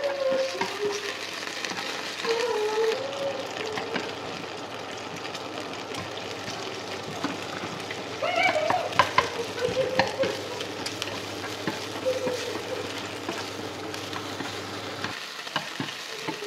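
Beef fat and sliced red onion sizzling in a hot non-stick frying pan while being stirred with chopsticks and a wooden spatula. A cluster of sharper clicks and scrapes from the utensils on the pan comes about eight to ten seconds in.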